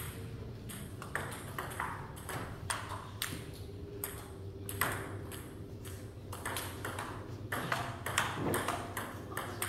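Table tennis ball clicking off the bats and the table: irregular sharp clicks, at times several a second.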